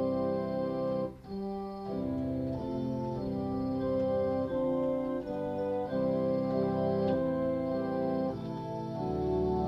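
Kurzweil digital keyboard played with an organ voice: slow held chords that change about once a second, with a short break about a second in.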